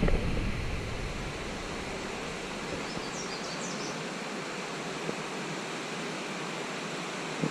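Steady rushing of a waterfall, an even hiss of falling water. A few brief high chirps come about three seconds in.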